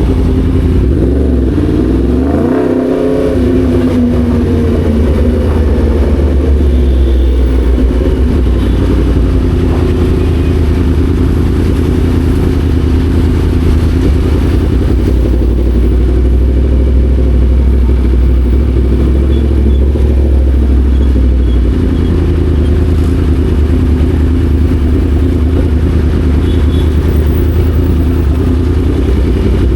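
Yamaha MT-10 SP's crossplane inline-four engine heard from the moving bike: its pitch swings up and down a couple of seconds in, then settles into a steady run with a heavy low rumble underneath.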